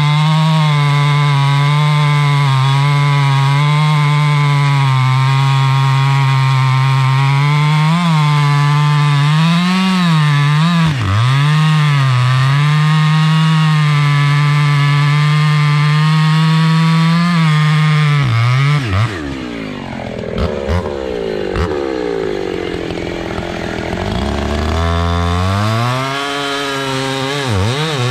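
Husqvarna two-stroke chainsaw at full throttle cutting into a large log, its pitch dipping several times as the chain bogs in the wood. About two-thirds of the way through it drops to idle for several seconds, then revs back up near the end.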